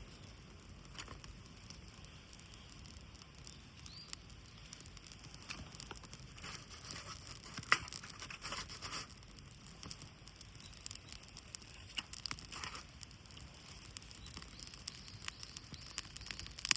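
Irregular small crackles, ticks and short scrapes of dry birch bark being handled and set alight for a campfire, growing busier near the end.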